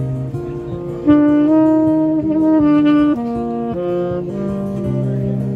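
Saxophone playing a slow melody of held notes, rising to a louder, higher passage about a second in before dropping back.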